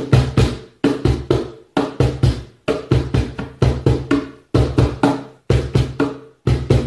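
Cajón played by hand in a steady repeating rhythm: quick groups of four or five strokes, deep bass hits mixed with sharper slaps, about one group a second with a short pause between groups.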